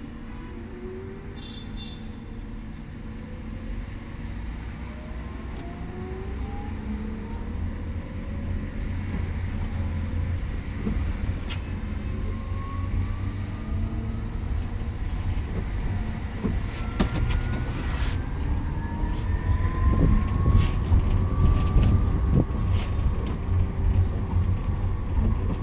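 Golden Dragon Astar electric city bus driving, its 100 kW Xiamen Golden Dragon TZ210XS-M050-02 traction motor whining and climbing in pitch as the bus gathers speed, once near the start and again through the middle. Underneath, road rumble grows louder, with scattered clicks and rattles.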